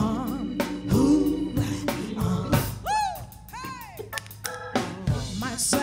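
Live soul-blues band playing a passage without sung words: drum kit, electric bass and organ. A few high notes glide up and down in arches about three seconds in.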